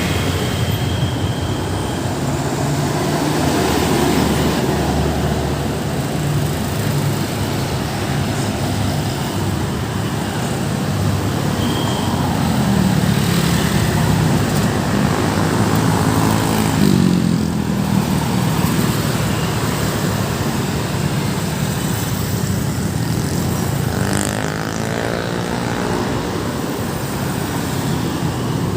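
Busy road traffic passing steadily: vehicle engines and tyre noise, with vehicles sweeping past close by several times.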